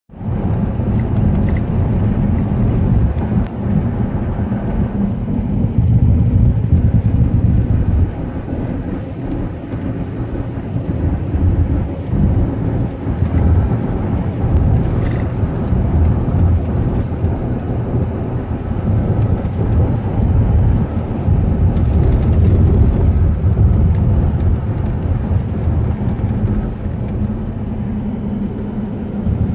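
Car driving on a rural road, heard from inside the cabin: a continuous low rumble of tyres and engine that swells and eases slightly, with a brief dip about eight seconds in.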